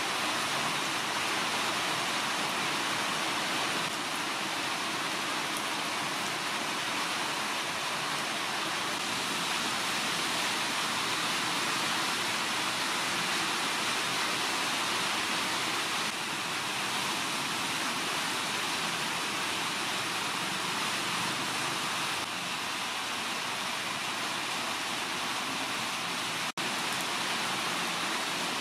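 A steady, even rushing hiss with no rhythm or pitch, broken only by a brief dropout near the end.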